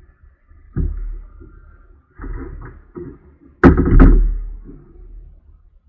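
Knocks and thumps on a plastic fishing kayak as gear and a paddle are handled on it, picked up by a camera mounted on the kayak. A series of separate knocks, the loudest a sharp pair about three and a half to four seconds in.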